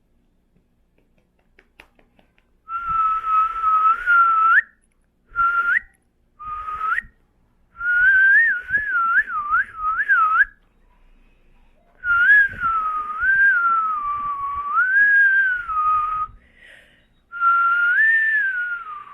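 A person whistling through the lips in six breathy stretches, the pitch sometimes held and sometimes wobbling quickly up and down, with a lot of air noise around the note.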